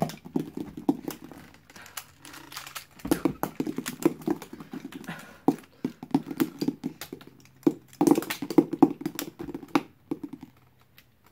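Rubik's Cube being twisted quickly by hand: rapid plastic clicking as the layers turn. In between come bouts of low muttering. The clicking stops shortly before the end.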